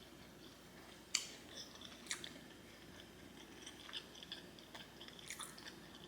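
Close-miked chewing of a mouthful of garlic noodles: faint, wet mouth clicks and smacks. A sharper click comes about a second in and another about two seconds in.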